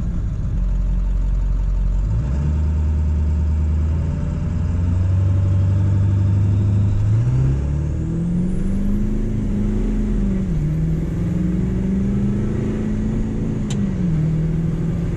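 Ford 7.3 L Powerstroke V8 turbo diesel heard from inside the cab. It runs low at first, then accelerates hard from a stop about seven seconds in. Its pitch climbs, drops back twice as the gears shift up, and climbs again each time, with a faint high whistle rising early in the pull.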